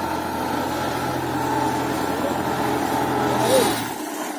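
Belarus 510 tractor's diesel engine running steadily under load as it pulls a tine cultivator through the field, with a brief louder rush about three and a half seconds in.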